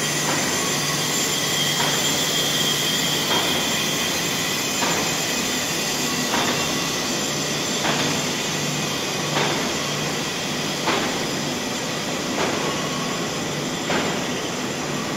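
Instant noodle production line machinery running: a steady mechanical din with a regular knock about every second and a half.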